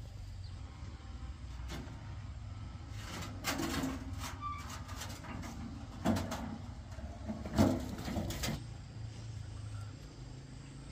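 A handful of sharp knocks and scrapes, the loudest two about six and seven and a half seconds in, over a steady low hum.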